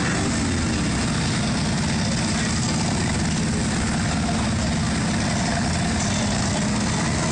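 Motorcycle engines running at low speed as bikes roll slowly past, a steady low rumble.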